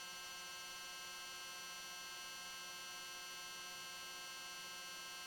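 Faint, steady electrical buzz on the cockpit intercom audio, a hum made of many evenly spaced tones, with no engine or voices coming through.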